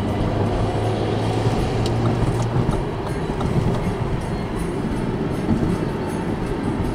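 Lada Vesta driving on a road: steady tyre and road rumble with a low engine hum that fades a couple of seconds in.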